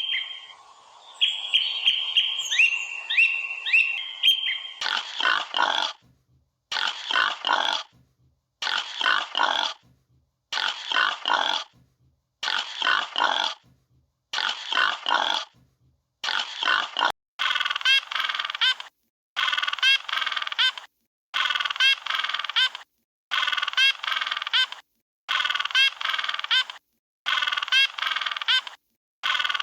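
Geese honking in repeated bursts of several calls, about one burst every two seconds, played as a looped animal-sound recording. They follow a few seconds of high chirping tones with short upward slides.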